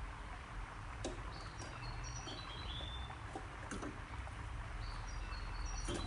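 European goldfinch giving a few short, high chirping phrases, one group in the first half and another near the end, over a steady low background hiss and rumble, with a couple of faint sharp clicks.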